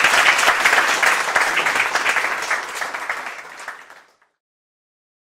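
Audience applauding: many hands clapping in a dense patter that thins out and cuts off about four seconds in.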